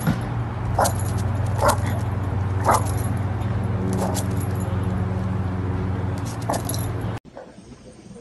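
A dog barking in about six sharp single barks, spaced irregularly, over a steady low hum. The barking and the hum stop abruptly near the end.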